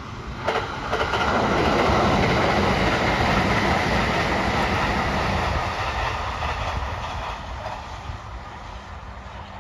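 Kintetsu 80000 series "Hinotori" limited-express electric train, six cars, passing at speed. A sharp knock about half a second in, then the rushing rumble of the cars going by, loudest for the next few seconds and fading as it moves away.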